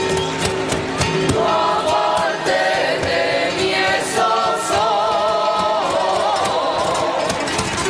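A group of voices singing a devotional song together, with sharp percussive taps keeping a steady beat.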